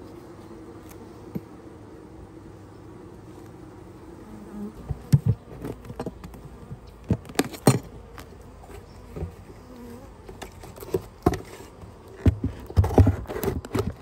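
Honeybees buzzing steadily over an open hive. From about four and a half seconds in, a string of sharp knocks and scrapes comes in as gloved hands handle the hive and the phone close to the microphone; these are the loudest sounds.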